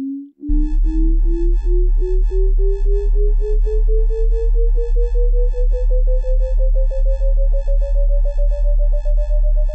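Synthesized intro sound: a single pure tone rising slowly and steadily in pitch, over a deep electronic bass pulse about three times a second. After a short first note, the full sound comes in about half a second in.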